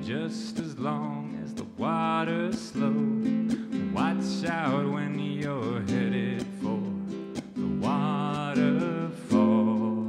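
Ukulele strummed in steady chords, with a man's voice singing a gliding melody over it.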